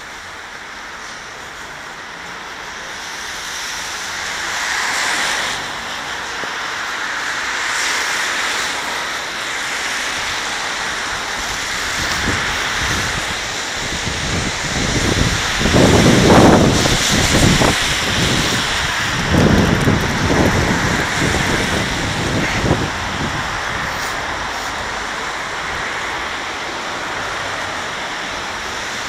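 Street noise: a steady hiss of traffic on a wet road, with wind buffeting the microphone in loud low rumbles around the middle.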